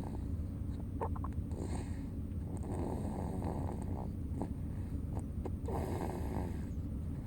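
Snoring in sleep: one noisy snore on each breath, recurring every couple of seconds over a steady low hum.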